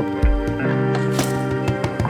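Background music: sustained held chords with light percussive ticks and a deep bass hit about a quarter second in.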